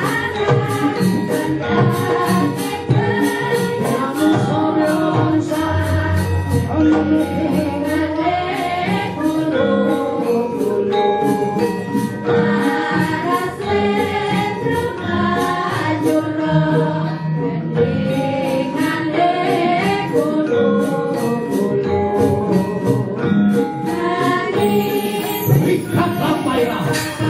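Javanese gamelan music with a group of female sindhen singers singing together over a steady pulse of struck metallic percussion.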